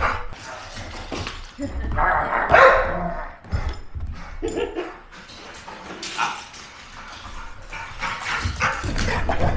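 Husky barking and vocalizing in irregular bursts while being played with, loudest about two and a half seconds in.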